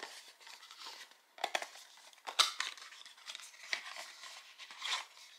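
Packaging crinkling and rustling in hands, with irregular small crackles and clicks, as a small cosmetics tube is taken out and handled.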